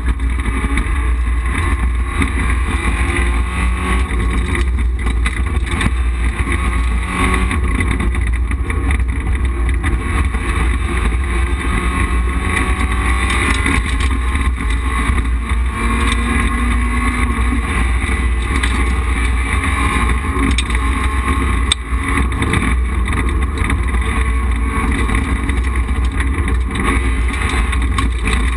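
Rally car engine driven hard on a special stage, heard from inside the stripped cockpit: the revs climb and fall with the gear changes over a heavy, steady rumble of road and cabin noise. A single sharp knock about 22 seconds in.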